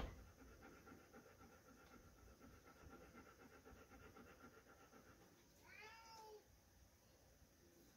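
Near silence, broken about six seconds in by one short whine that rises and then falls in pitch, from a young Belgian Sheepdog held on a wait in its crate.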